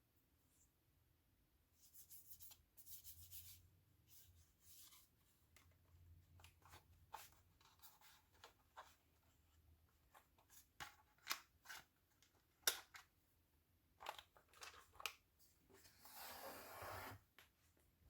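Quiet unboxing handling noises: scattered light taps and clicks with short rustles of packaging, one sharper tap about two-thirds of the way in, and a longer rustle or tear near the end.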